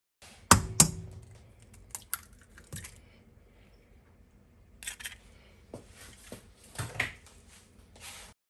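An egg being cracked against the rim of a stainless steel mixing bowl: two sharp knocks about half a second in, followed by scattered small clicks and taps as the shell is broken open and handled.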